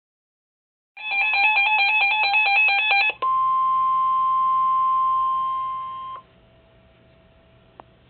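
Reecom NOAA weather alert radio sounding an alert: a loud electronic alarm that warbles rapidly between two pitches for about two seconds, then the single steady weather-radio warning tone for about three seconds, which fades and stops, leaving faint hiss and a click near the end.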